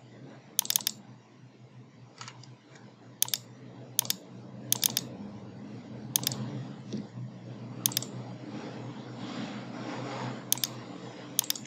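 Computer mouse clicking: about eight sharp clicks spaced a second or two apart, many in quick pairs like double-clicks, as objects are selected and a dialog is opened, over a faint steady low hum.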